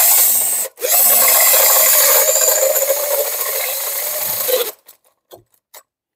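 Cordless drill boring out a hole in a steel chainsaw guide bar to enlarge it to 8 mm. The drill runs, stops for a moment just under a second in, runs again until almost five seconds in, then gives a few short blips before falling quiet.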